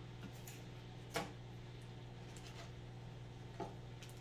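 Three light taps, the loudest about a second in, as plastic-wrapped jerky sticks are moved about on a wooden table, over a steady low hum.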